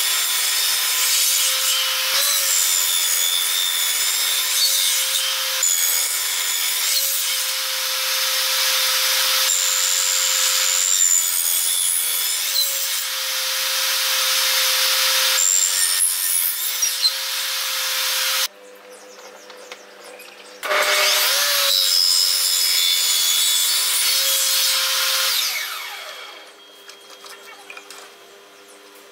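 Table saw blade cutting hardwood as a wooden tenoning jig carries the upright workpiece through it, cutting tenon cheeks and slots. A steady whine runs under the dense cutting noise. The sound drops off sharply for a couple of seconds about two-thirds of the way in, comes back, then fades near the end.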